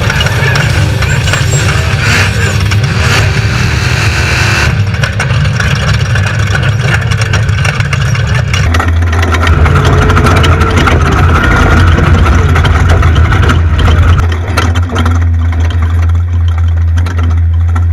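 Off-road race vehicle's engine running hard under load, a loud steady drone whose note shifts abruptly about five and nine seconds in.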